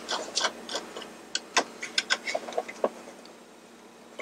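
Screwdriver clicking and scraping in a rusted, stripped screw in the base of a Mr. Christmas merry-go-round: irregular small clicks, growing sparser toward the end.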